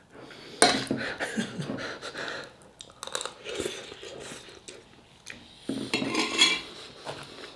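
Metal spoon scraping and clinking in a takeaway food container as food is scooped up, followed by chewing of a mouthful.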